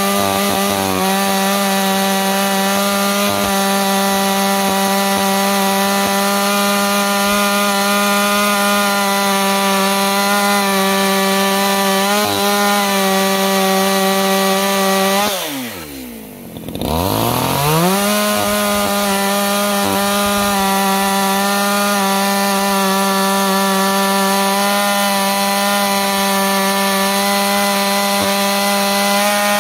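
Echo CS-620P two-stroke chainsaw running at high steady revs, cutting wood. About halfway through, the throttle is let off and the engine pitch falls sharply toward idle. After a second or so it revs back up to the same steady high pitch.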